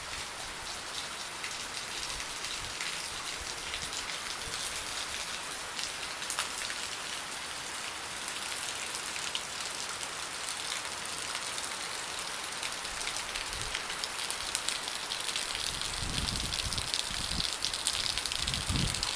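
Heavy tropical rain falling steadily, an even hiss of drops on leaves, water and pavement. Over the last few seconds a closer, lower splashing joins it as water pours from a rain chain onto concrete beside a drain.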